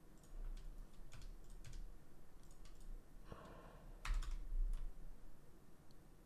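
Faint computer keyboard keystrokes and clicks, a scattered few, with a low knock about four seconds in.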